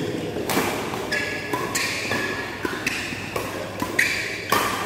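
Badminton rackets hitting a shuttlecock in quick succession during a fast doubles rally, sharp cracks about every half second. Short high squeaks from players' shoes on the court mat come between the hits.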